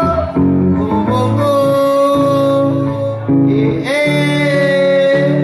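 Live music: a man singing long, wordless held notes over a picked electric guitar accompaniment.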